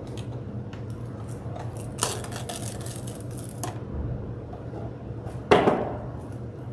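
Plastic wrap being pulled from its box and torn off on the cutter, with crinkling and crackling of the film, loudest in a dense spell about two seconds in. A sharp knock about five and a half seconds in is the loudest sound.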